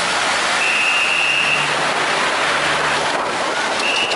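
Fast-flowing water churning around a swamped, capsized longtail boat, a loud steady hiss. A high steady tone sounds for about a second, and again briefly near the end.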